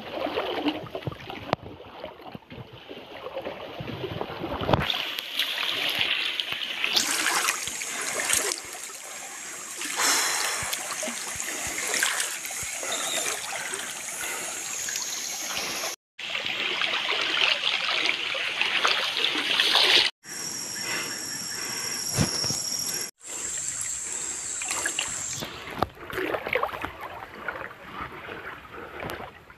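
Water splashing and sloshing as people wade through a shallow, muddy stream. The sound cuts out suddenly for a moment three times in the second half.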